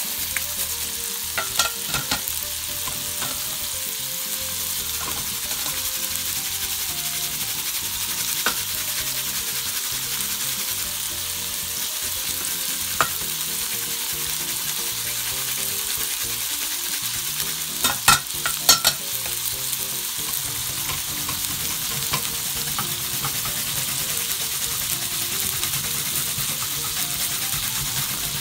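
Pork-wrapped rolls sizzling steadily as they fry in a pan, with a few sharp clicks and knocks scattered through, the loudest a short cluster about two-thirds of the way in.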